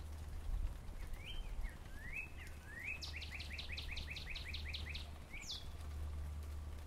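Northern cardinal singing one song: a few rising slurred whistles, then a fast run of about a dozen falling whistled notes, about six a second, ending in one higher falling note. Steady low rumble of background noise underneath.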